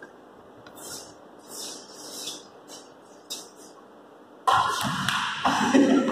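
Quiet hall hiss with faint scuffs, then about four and a half seconds in a sudden sharp knock of a cricket bat hitting the ball, followed at once by players' voices calling out.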